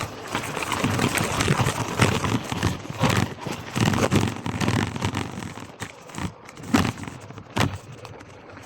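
Marin Gestalt X10 gravel bike's tyres crunching and crackling over a wet gravel climb, with the rear wheel briefly slipping for grip, and a couple of sharp knocks near the end.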